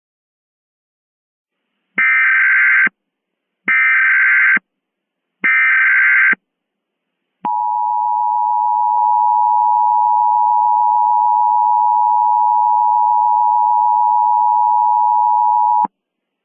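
Emergency Alert System tones: about two seconds in, the SAME digital header plays as three identical warbling data bursts of about a second each, followed by the EAS attention signal, a steady two-tone alarm held for about eight seconds and cut off sharply.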